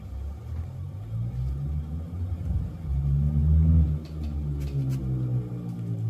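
A motor vehicle's engine running with a low rumble, its pitch rising and then falling away toward the end.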